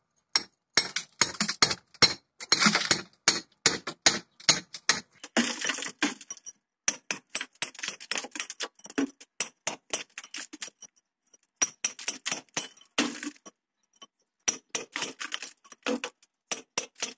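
Hammer striking a steel chisel against a brick and mortar wall: sharp metallic clinks in quick runs of a few strikes a second, with short pauses in the second half. The chisel is chipping out brick and mortar from a groove pre-cut with a machine, to make a channel for electrical conduit pipe.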